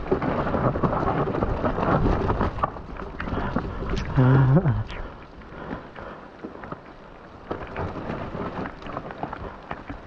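Mountain bike riding down a wet, muddy trail: tyres on slick mud and the bike knocking and rattling over the ground, with wind buffeting the camera microphone. The noise is heaviest over the first five seconds, with a short vocal cry from the rider about four seconds in, then lighter and choppier.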